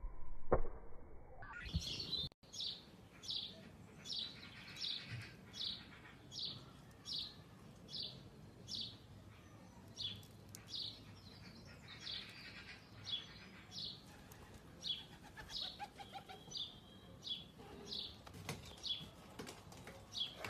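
A bird chirping: short high-pitched chirps, each falling in pitch, repeated steadily about one and a half times a second. There are a couple of sharp knocks in the first two seconds.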